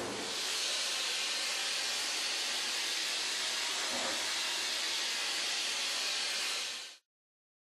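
A steady hiss at an even level that cuts off abruptly about a second before the end.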